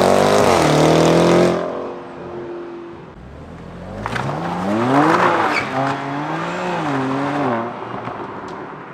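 Car engines accelerating hard past: one at high revs falls in pitch and fades about a second and a half in, then another car pulls away from about four seconds in, its revs climbing and dipping through gear changes and loudest about five seconds in.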